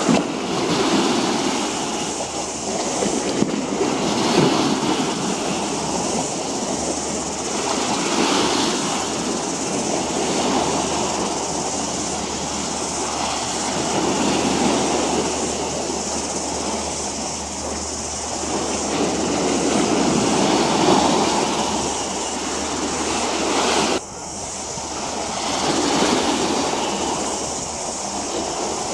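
Harbour waterfront ambience: a steady rushing noise that swells and fades every few seconds over a low steady hum. The sound drops abruptly about 24 seconds in.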